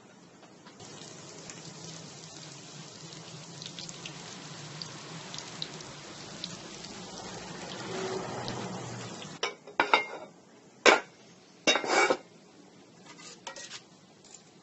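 Breaded tofu pieces sizzling in hot oil in a frying pan, a steady hiss with small crackles. About nine and a half seconds in the sizzle drops away and metal tongs clack sharply against the pan several times as the fried pieces are turned.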